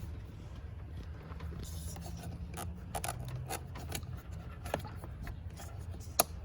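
Pliers scraping and prying at plastic trim clips, with scattered small clicks and one sharp click near the end, over a steady low hum.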